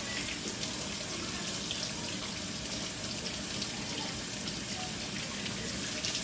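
Water running steadily from a kitchen tap into a sink, a constant hiss with small splashes.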